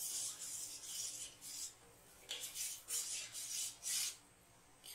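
Metal spoon stirring sugar and water in a stainless-steel pot, scraping across the bottom in a series of strokes while the sugar is still melting into syrup; the scraping stops shortly before the end.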